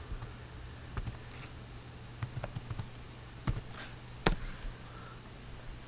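Computer keyboard keystrokes, a handful of separate clicks spread over several seconds as a URL is typed, over a faint steady low hum.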